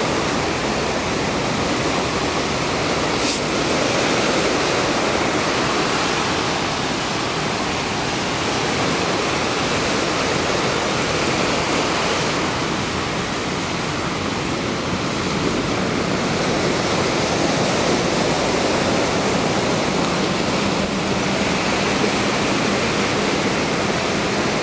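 Ocean surf washing onto a sand beach: a steady, unbroken rush of noise with no single waves standing out.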